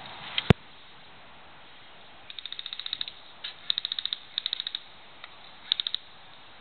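Bursts of rapid airsoft gunfire, about fifteen shots a second in several short strings, after a single sharp click about half a second in.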